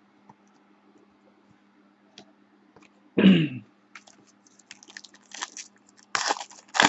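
Foil trading-card pack being handled and torn open. There is a brief loud sound with falling pitch about three seconds in. Crinkling and rustling of the wrapper follows, growing denser and louder near the end.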